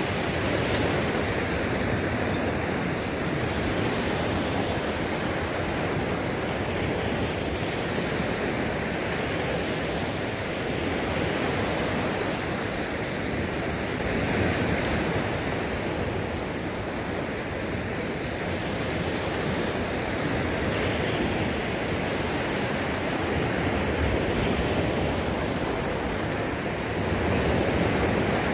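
Surf washing onto a sandy beach: a steady rushing noise that swells and eases slowly, with wind buffeting the microphone.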